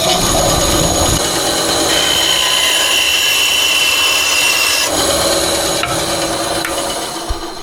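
Small tabletop bandsaw running: its motor and blade make a steady, loud whirring noise, which fades near the end as it winds down.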